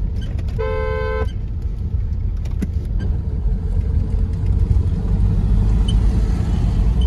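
A car driving on the highway, heard from inside the cabin as a steady low rumble of engine and tyres. A vehicle horn sounds once, held for under a second, about half a second in.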